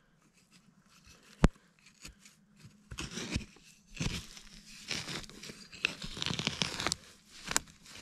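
A long-handled digging tool scraping and prodding through pine-needle litter and loose soil, giving irregular crunchy rustles and scrapes. There is one sharp knock about one and a half seconds in, and the scraping runs on from about three seconds in, with a last sharp tick near the end.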